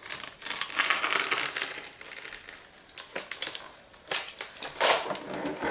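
A sheet of coroplast (corrugated plastic) being cut by hand, in three crackling, scraping stretches of about a second each.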